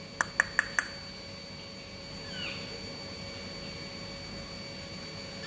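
Four quick sharp clicks, about five a second, then about two and a half seconds in a faint short falling chirp from the caged black-naped oriole, over a steady thin high tone.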